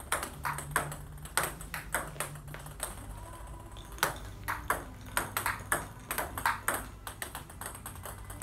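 Celluloid-type table tennis ball repeatedly struck by a bat and bouncing on the table: sharp, short clicks, about two to three a second. The strokes are forehand attacks and flicks with a long-pimpled rubber without sponge (OX) against no-spin balls.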